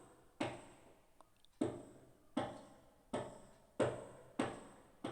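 A series of about seven sharp taps or knocks, each fading quickly, coming irregularly about two-thirds of a second apart.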